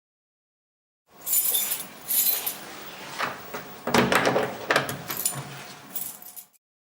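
Jangling, clinking clatter of small hard objects with a run of sharp knocks, starting about a second in, loudest about four seconds in, and stopping abruptly near the end.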